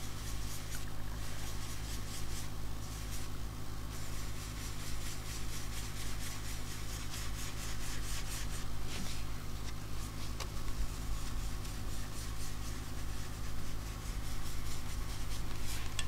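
Blending brush rubbed in quick repeated strokes over cardstock and sticky-note masks to blend ink, giving a scratchy bristle-on-paper rubbing over a steady low hum.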